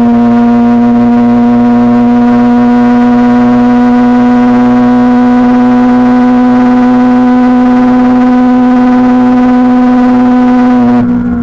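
Kawasaki Ninja 636's inline-four engine held at steady high revs, a loud constant drone with wind rush over it. Near the end the pitch drops as the revs fall.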